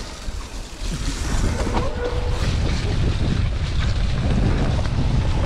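Wind buffeting the camera's microphone as a mountain bike rolls fast down a dirt trail, with tyre noise and the bike rattling over bumps in occasional knocks. The rush grows louder about a second in as speed picks up.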